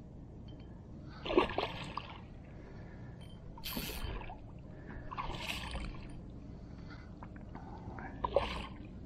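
Hooked redfish thrashing and splashing at the surface of shallow water: four separate splashes a few seconds apart, the first and last the sharpest.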